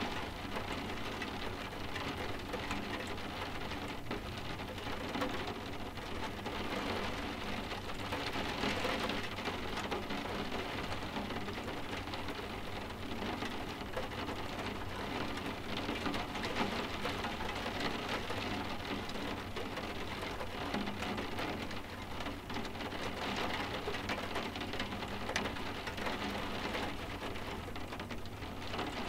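Steady soft rain with many small drops tapping on window glass, even and unbroken throughout.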